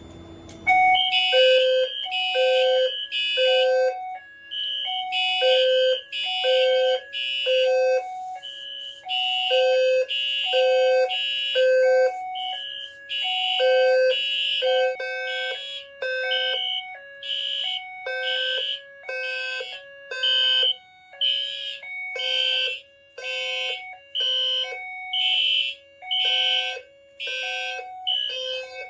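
Fire alarm system going into alarm about a second in, after a smoke detector trips. A B200SR-LF low-frequency sounder base and horns sound together in repeating groups of three pulses, the low sounder tone and the higher horn tone overlapping out of step with each other.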